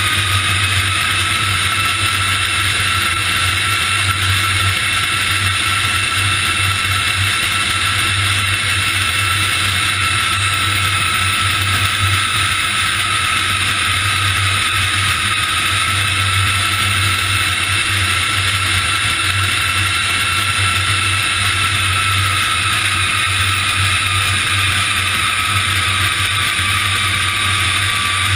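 Steady rush of airflow and jet engine noise under a large airliner on final approach with its landing gear down, with a faint steady whine that drops slightly in pitch near the end.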